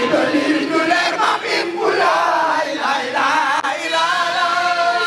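Several men's voices chanting a Sufi zikr over a crowd, the lines wavering and overlapping; near the end one voice holds a long wavering note.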